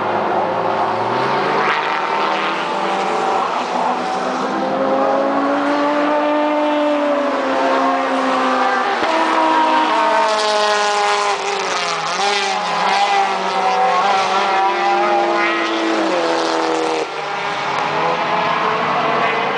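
Touring race car engines going through a curve, several cars passing one after another, their engine notes dropping and climbing as they brake and accelerate out. About ten seconds in, as a car passes closest, the sound gets louder and harsher.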